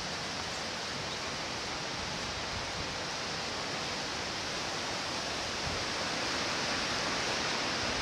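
Steady, even outdoor hiss with no distinct events, the sound of wind moving through the trees and grass.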